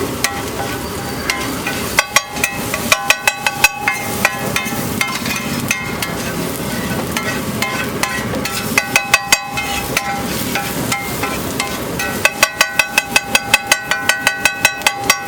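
Metal spatula clanging against a hot griddle in quick runs of ringing strikes, about four or five a second, as eggs are chopped and turned, over the steady sizzle of frying.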